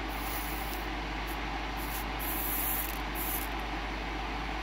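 Hot soldering iron tip sizzling in a tub of flux in several short hissing bursts, over the steady whir of a small fume-extractor fan.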